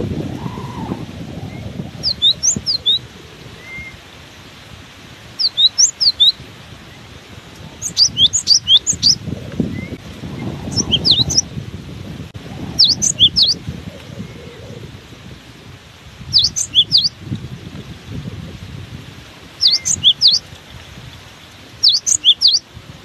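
Cinereous tit (gelatik batu) singing in short clusters of sharp, high chirped notes, a burst every two to three seconds. Strong wind buffets the microphone underneath as a low, uneven rumble.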